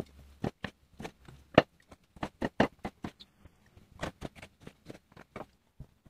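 Chef's knife cutting tomatoes into wedges on a plastic cutting board: a run of sharp, irregular knocks, several a second, as the blade strikes the board.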